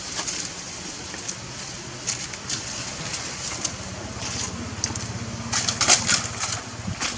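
Irregular crunching and crackling, with a cluster of louder crackles about six seconds in, over a low steady hum that grows stronger past the middle.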